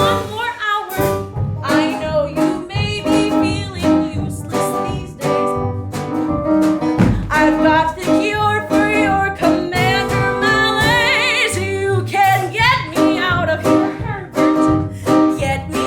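Jazz-flavoured musical-theatre song accompaniment with plucked bass and guitar, under a melody line with strong vibrato.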